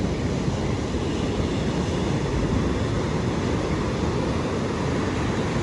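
Steady rush of wind on the microphone mixed with surf, even in level, with no distinct cracks or knocks.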